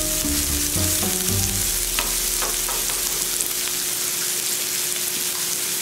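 Chopped onions sizzling steadily in hot oil in a nonstick frying pan as they are sautéed, stirred with a wooden spatula, with a few light clicks about two seconds in.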